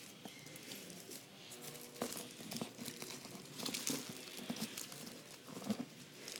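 Packaging being crinkled, pulled and torn at by hand in a struggle to open it, with irregular crackles and clicks.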